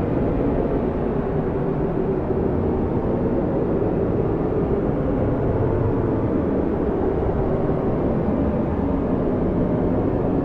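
Strong blizzard wind blowing steadily, a continuous low rushing noise.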